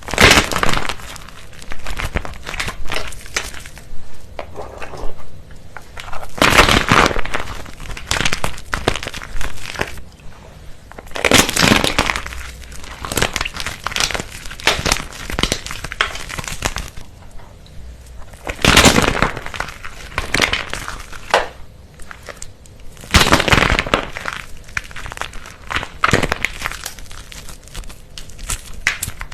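Crisp crackling and crunching of a brittle material being crushed, in dense bursts; the loudest come about every five seconds, with finer crackles between.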